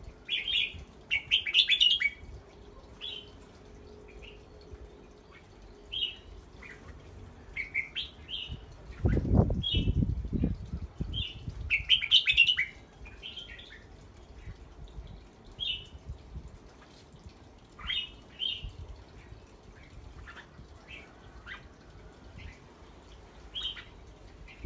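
Red-whiskered bulbuls giving short chirps and brief bubbly call phrases on and off, busiest near the start and again about halfway through. About nine seconds in, a low rumbling noise lasts around two seconds.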